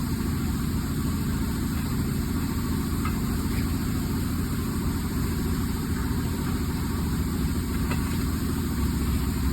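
A machine running with a steady low hum that holds even throughout, with a few faint light ticks.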